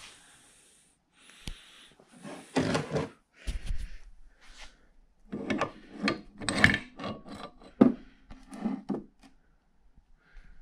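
A metal lathe gearbox shaft handled against its bracket and laid on a wooden workbench. A series of short rubs, scrapes and knocks begins about two seconds in.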